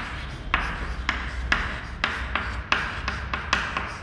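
Chalk writing on a chalkboard: a run of short taps and scratches, two or three a second, as each letter is stroked, over a steady low hum.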